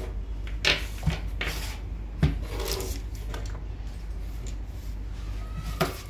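Hands handling a video recorder, cables and other small plastic items on a tabletop: a few light knocks and rubs as things are set down and moved, spread irregularly, over a steady low hum.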